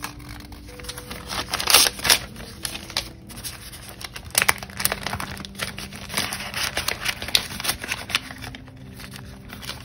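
Paper banknotes and a clear plastic binder pouch rustling and crinkling as cash is handled and stuffed in, with sharp crackles throughout.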